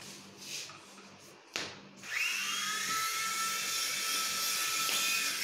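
A small electric motor in a toy remote-control aircraft spins up about two seconds in with a quick rising whine, then holds a steady high-pitched whine. There is a short knock just before it starts.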